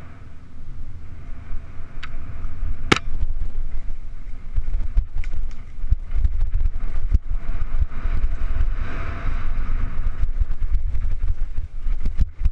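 Mountain bike descending a rocky dirt trail: wind buffeting the body-mounted camera's microphone, with the tyres rattling over gravel and rocks and sharp clacks as the bike hits them, one loud clack about three seconds in.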